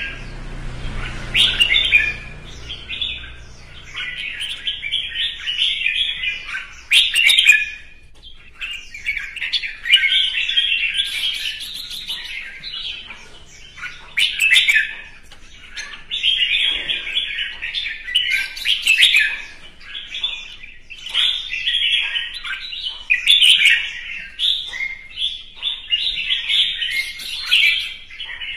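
Caged red-whiskered bulbul singing its competitive fighting song: rapid warbling, whistled phrases a second or two long, one after another with short pauses.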